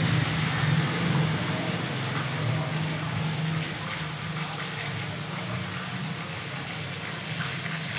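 Steady hiss of rain falling, with a low rumble underneath that is stronger in the first half.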